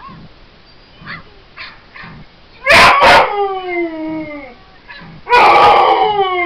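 Dog barking and howling: a few faint yips, then two quick loud barks about three seconds in that trail into a howl falling in pitch, and near the end another loud bark drawn out into a second falling howl.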